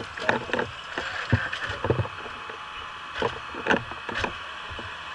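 Irregular knocks and blows of firefighters' tools working on a roof to open it for vertical ventilation, about eight strikes in the first four seconds or so. A steady mechanical hum runs underneath.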